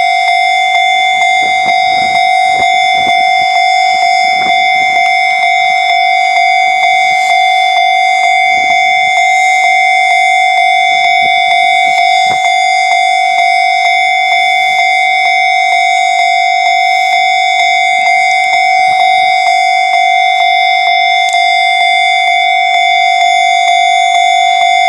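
Japanese railway level-crossing warning bell ringing: a loud electronic ding repeating in an even rhythm, a little faster than once a second, at one steady pitch.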